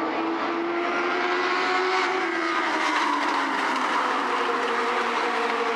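Several Legend race cars' Yamaha motorcycle engines running together as the pack circles the track, their pitches gliding up and down as cars pass and change speed.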